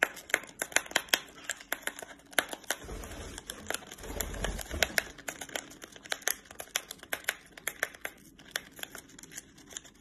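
A lovebird tearing at a foil-lined tea packet with its beak: quick, irregular crinkles and snaps of the packaging.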